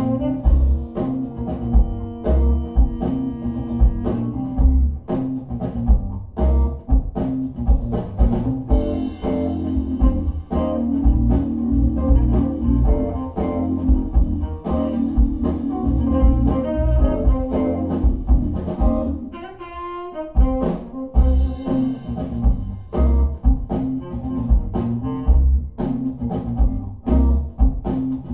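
Background music with a steady beat and a deep bass line, thinning out briefly about two-thirds of the way through.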